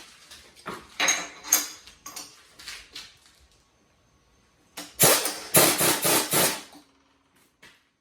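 Metal clanking and rattling in a machine shop, with several sharp knocks. About five seconds in comes a loud, rough noise lasting about two seconds.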